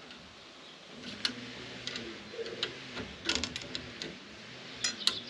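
Light, irregular metallic clicks and ticks as small stainless bolts and nuts are fitted by hand into the aluminium tube ends of a Moxon/Yagi antenna's element sections. There are about half a dozen clicks, with a small cluster a little past the middle.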